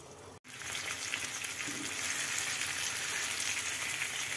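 Tandoori-marinated chicken leg frying in butter in a non-stick pan: a steady crackling sizzle that starts abruptly about half a second in.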